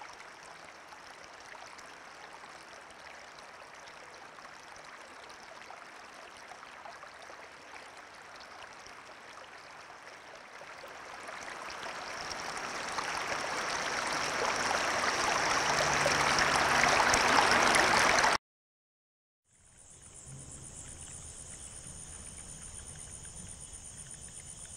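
Rushing water, steady at first, then swelling to a loud rush from about ten seconds in, before cutting off suddenly. After a second of silence, a steady, high-pitched chirring of insects begins.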